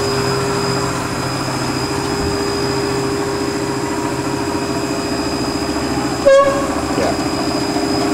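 1988 Fadal 4020HT CNC vertical machining center running its cold start warm-up program: the spindle turning at about 250 RPM and the axes moving back and forth, giving a steady hum with a high whine over it. About six seconds in comes a short, loud squeak from a stainless steel way/weight cover sliding back and forth, which the owner thinks is the front cover.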